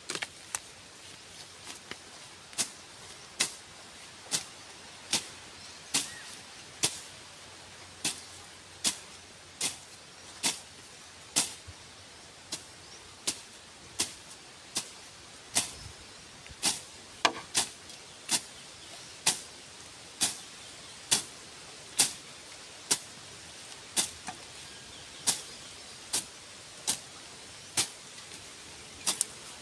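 A hand tool making repeated sharp, short strokes in a steady rhythm, a little more than one a second.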